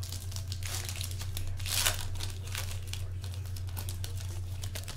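Trading-card pack wrapper being torn open and crinkled in the hands: a run of crackling rustles with one louder tear about two seconds in. A steady low hum runs underneath.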